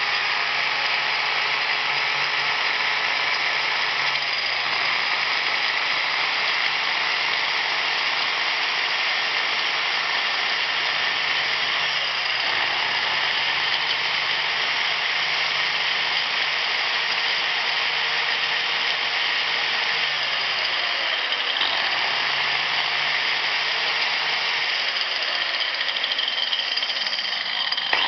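An old DWT angle grinder's motor running free with no load, a steady high whir, while its newly fitted Chinese carbon brushes bed in against the commutator.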